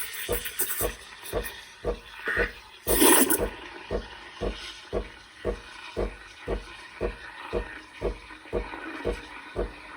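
Espresso machine running with a water-like rush, its pump pulsing in regular low thumps about twice a second. A short, loud hiss about three seconds in.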